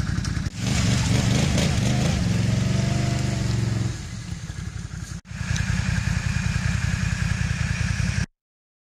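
ATV engines running and revving, the engine pitch rising and falling about three seconds in. The sound breaks off briefly twice and stops abruptly just over eight seconds in.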